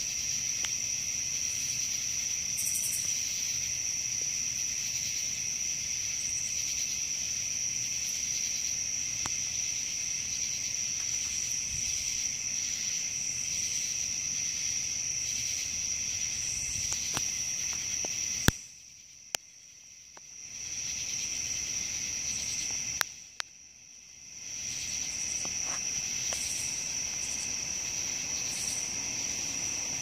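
Steady night chorus of crickets, a continuous high shrill. Past the middle come two sharp clicks a few seconds apart, and after each one the chorus drops out for about a second and a half before coming back.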